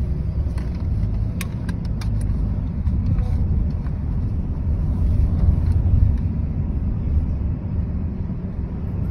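Steady low rumble of road and engine noise heard from inside a moving car's cabin, with a few light clicks about a second and a half in.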